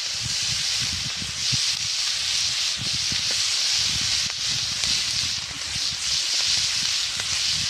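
Meat sizzling steadily on a saç pan for saç kavurma, a loud even hiss with irregular crackles underneath.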